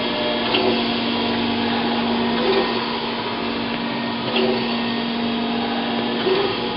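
Chevalier FSG-1632 surface grinder running with a steady hum while its hydraulic table travels back and forth, with a brief swell in the noise about every two seconds.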